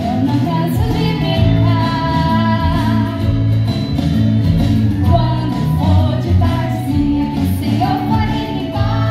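Music: an upbeat children's song, a sung melody over a steady repeating bass line.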